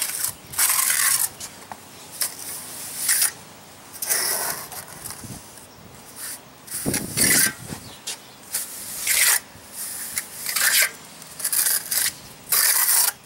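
Steel trowel scooping and spreading rapid-set mortar over metal lath: a dozen or so short scraping strokes at irregular spacing.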